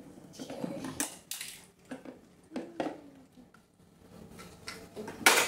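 Plastic toy dishes, teapot and cups clicking and clattering as they are handled and set down, with a louder clatter near the end.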